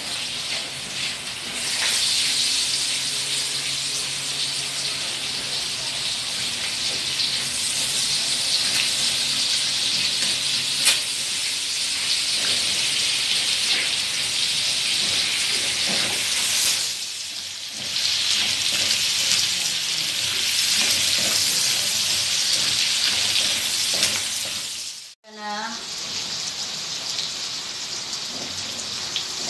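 Chicken pieces and freshly added onion frying in a hot wok: a steady, even sizzle. It dips once partway through and drops out abruptly for a moment near the end.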